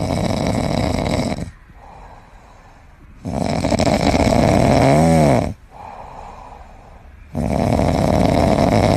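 A sleeping pet snoring: three loud rasping snores about four seconds apart, with quieter breaths between them. One snore, about five seconds in, carries a brief wavering pitched tone.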